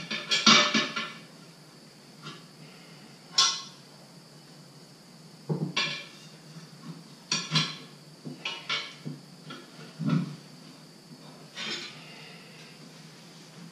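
Steel tire spoons levering a tire bead onto a wheel rim by hand: irregular sharp metal clanks and scrapes, a dozen or so spread unevenly, the loudest cluster near the start.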